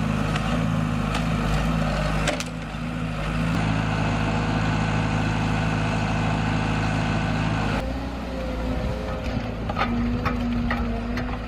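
Tractor engine running steadily, its tone shifting abruptly about two seconds in and again near eight seconds. A few sharp knocks follow in the last few seconds.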